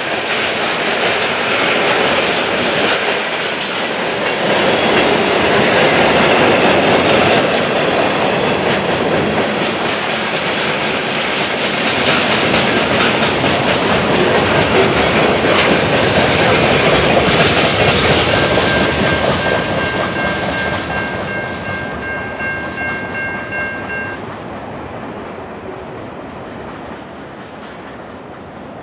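Freight cars of a passing train rolling by, their wheels clicking over the rail joints. The sound is loud through the middle and fades as the end of the train goes past. In the second half a steady high tone sounds for several seconds, then stops.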